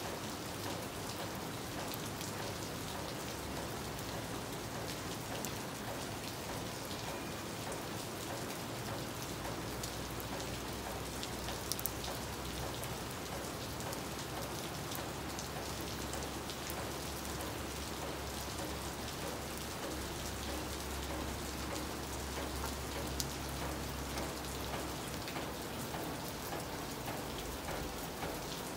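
Steady rain falling on roofs, palm fronds and a paved street, an even hiss with a couple of sharper drop clicks.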